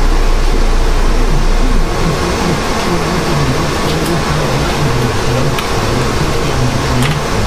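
Steady rush of air from a blower fan driven by a variable-speed ECM motor, set to half speed with misters on it. The sound drops a little in level about two seconds in, and a few light clicks come from hand work on engine parts.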